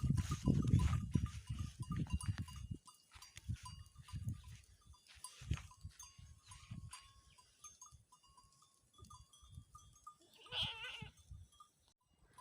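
Goats grazing: small bells ringing faintly now and then, with low rustling bumps close by in the first few seconds and a single goat bleat near the end.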